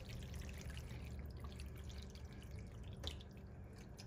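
Sauced penne and ground sausage sliding off a metal pan and dropping into a glass baking dish: faint, wet, soft landings, with one light click about three seconds in.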